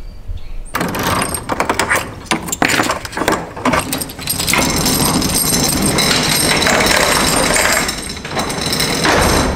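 Chain-operated roll-up door being hand-chained down: the metal hand chain clatters through the hoist and the door's slats rattle as they roll down. It starts about a second in.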